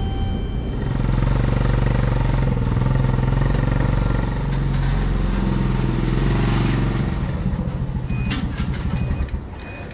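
Small four-wheeler (ATV) engine running at low revs, rising and easing off as it pushes a race car along, then dying down near the end with a few light clicks.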